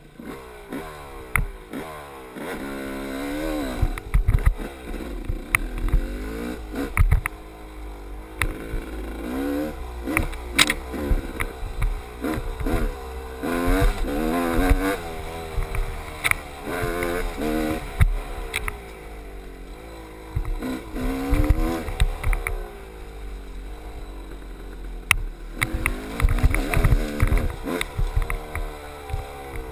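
GasGas dirt bike engine revving up and down over and over as the throttle is worked, its pitch rising and falling every second or two. Sharp knocks and clatter from the bike pounding over the rough trail run throughout.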